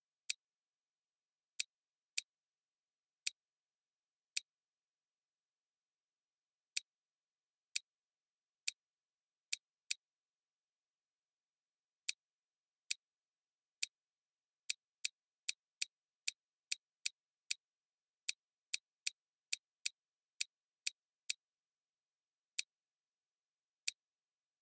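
Computer mouse button clicking, about thirty short sharp clicks at an uneven pace, quickening to two or three a second in a run through the middle.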